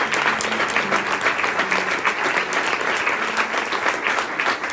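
Audience applauding: dense, steady hand-clapping.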